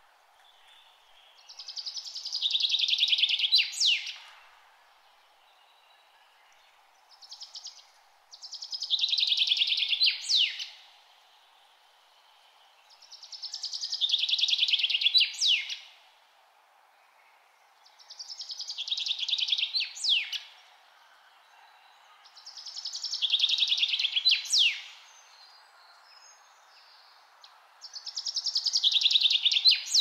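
A songbird singing the same phrase over and over, about every five or six seconds. Each phrase is a rapid high trill that swells over a couple of seconds and ends in a sharp flourish, over a faint steady background hiss.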